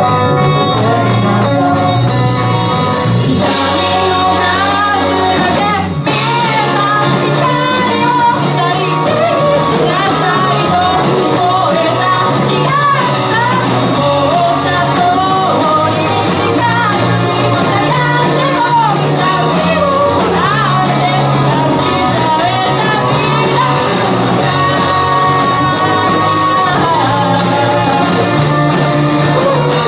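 Live rock band playing: electric guitar, bass and drum kit, with a lead vocal singing over it. The full band comes in sharply about six seconds in.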